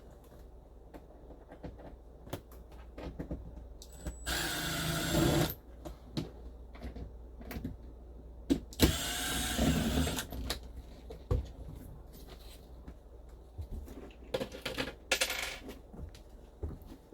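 A cordless drill/driver spinning screws out of the motorhome's dash trim in three short runs, the second one winding down as it stops, between small clicks and knocks of screws and plastic trim being handled.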